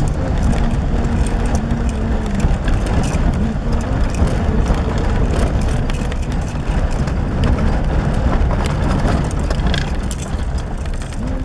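Car driving over a rough unpaved road, heard from inside the cabin: a steady low rumble with frequent small rattles and knocks.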